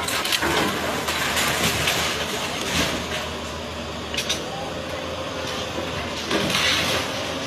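Excavator's diesel engine running steadily, with scattered knocks and scrapes of demolition debris.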